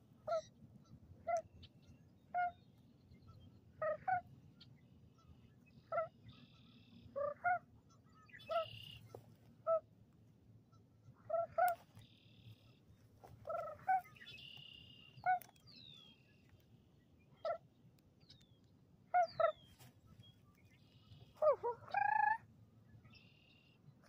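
Birds calling: a series of short, honking calls, irregularly repeated every second or so, with one longer call that rises and falls in pitch near the end.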